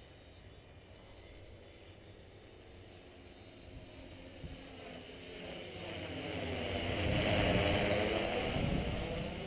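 Tarot T960 hexacopter's six electric motors and propellers whirring, growing steadily louder as it flies in and passes overhead. It is loudest about three quarters of the way through, then eases off slightly.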